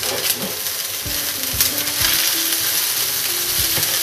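Fried rice and diced vegetables sizzling in a frying pan while a spatula stirs through them, with repeated short scrapes and taps against the pan.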